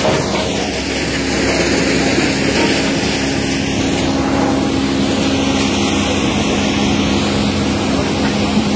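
SAMI Autofactory firewood processor running, its drum and conveyors turning: a steady mechanical drone with a constant low tone.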